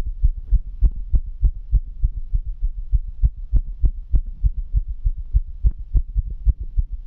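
Fast human heartbeat: a quick, even run of low thumps.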